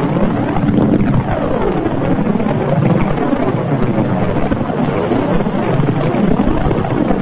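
Sonified space audio: radio emissions converted into audible sound, presented as the sound of Saturn's rings. A steady, dense rushing noise with many overlapping tones sweeping up and down.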